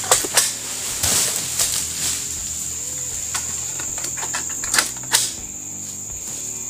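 A long pole-mounted oil palm harvesting sickle (egrek) knocking and clicking against the palm's fronds and fruit bunch, a few sharp strokes near the start and again around five seconds in. A steady high-pitched hiss runs underneath.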